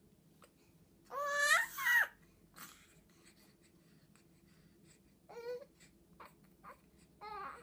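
Young baby crying out once about a second in, a loud cry lasting about a second with a wavering pitch. Near the end come a few short, quieter baby vocal sounds.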